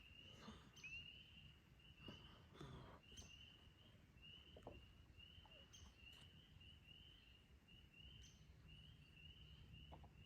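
Faint chorus of spring peeper frogs: short rising peeps repeated about twice a second, overlapping one another.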